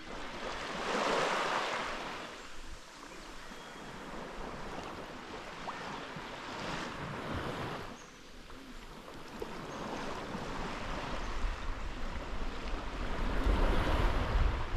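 Sea waves washing in, a rushing sound that swells and fades four times. Wind rumbles on the microphone underneath, growing toward the end.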